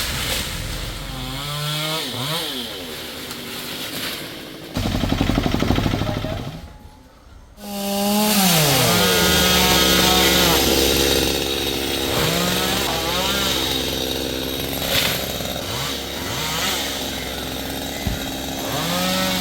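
Two-stroke chainsaw engine revving up and down repeatedly. About seven seconds in it drops almost to nothing for a moment, then picks up again and runs on with further rises and falls in pitch.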